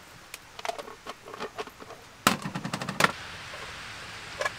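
A scatter of sharp clicks and taps, with a loud, dense run of them a little over two seconds in lasting under a second. Then a steady seaside hiss of surf sets in.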